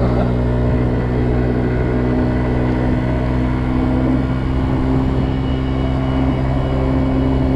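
Kymco Agility 50 scooter's 50cc engine running at a steady, high speed while riding, with wind rushing over the microphone.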